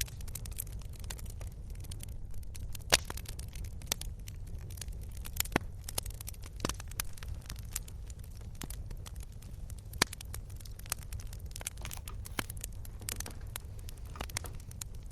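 Wood campfire crackling, with irregular sharp pops and snaps over a steady low rumble of the burning fire. The loudest pops come about three seconds in and again about ten seconds in.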